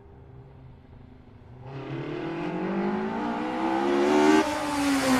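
Car engine accelerating: faint at first, it grows louder from about a second and a half in, its pitch rising steadily, then breaks and starts to fall near the end.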